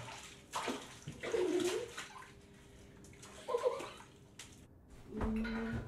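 Bathwater splashing and sloshing in a tiled bathtub as a washcloth is worked over a child, in several short splashes, with a few brief vocal sounds between them.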